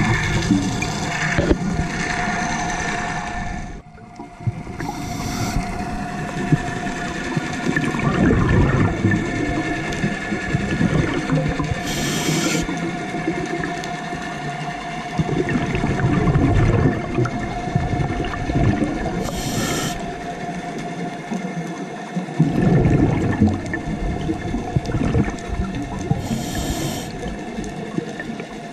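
Scuba diver breathing through a regulator, heard through an underwater camera housing: a short hiss of inhalation about every seven seconds, each followed by a longer gurgling rush of exhaust bubbles. A steady hum runs underneath.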